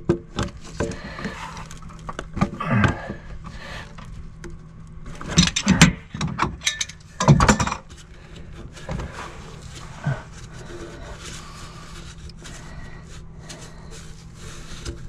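Large channel-lock pliers clicking, scraping and clanking on an old ABS drain's slip nut as it is worked to turn it, with louder clusters of clanks about five and a half and seven and a half seconds in.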